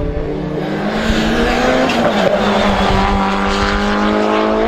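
Rallycross Supercar engine at hard throttle, its note rising steadily in pitch over the second half, mixed with a gritty rush of tyres on loose gravel as the car slides through a dirt corner. The sound cuts off abruptly at the end.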